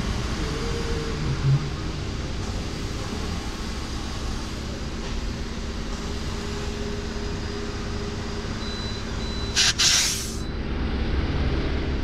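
Van tyre being inflated with a fuel-station air hose, over a steady low hum; about ten seconds in, a short loud hiss of compressed air escapes as the hose chuck comes off the tyre valve.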